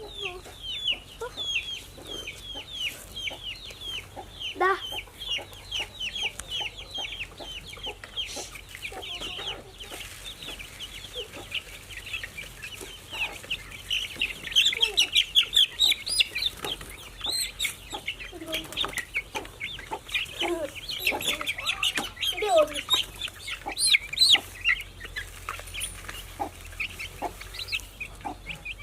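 Chickens in a coop clucking, over a dense, continuous chatter of quick, high chirps.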